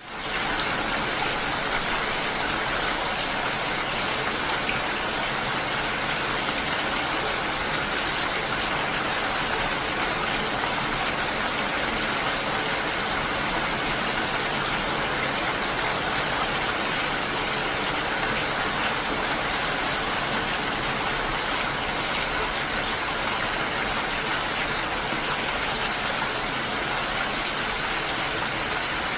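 Steady, heavy rain falling, an even hiss without breaks; it fades in quickly from silence at the start.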